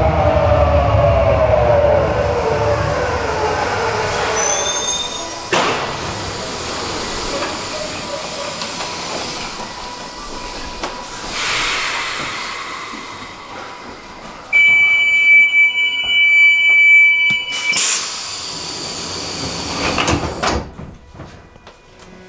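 Naples metro Line 1 train pulling into the station, its electric motors whining down in pitch as it brakes, with a clunk about five seconds in. Later a steady door-warning tone sounds for about three seconds and ends in a sharp thud, followed by another knock about two seconds after.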